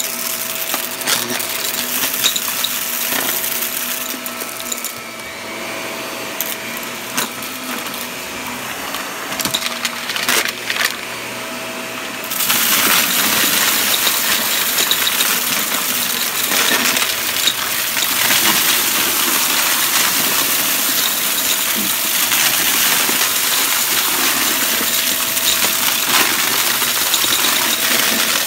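Shark upright vacuum running with a steady whine, sucking up dry debris from carpet: small hard bits click and rattle up through the machine. About twelve seconds in the rattling and hiss get louder and denser as the head is pushed into the pile.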